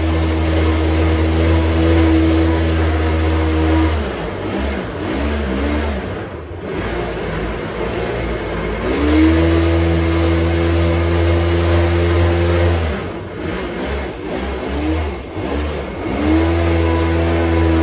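Mini aluminium jet boat's Kawasaki 650 engine running at high revs under way. The revs drop off twice, about four seconds in and again around thirteen seconds, then climb back to a steady high pitch each time.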